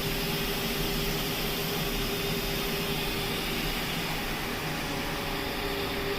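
Steady mechanical whirring noise with a constant mid-pitched hum running through it.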